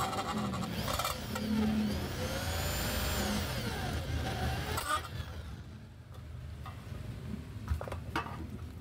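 Corded electric drill running with its twist bit boring into an aluminium screen-door frame joint, the motor pitch rising and falling for about five seconds before it stops. A couple of sharp knocks follow near the end.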